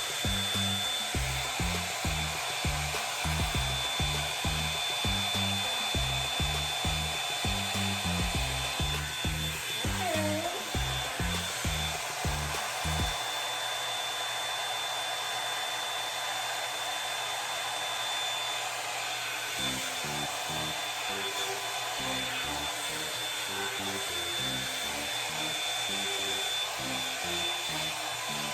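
Revlon One-Step hair dryer brush blowing steadily, a constant rush of air with a thin high whine from its motor. Background music with a bass beat plays under it, dropping out for several seconds in the middle.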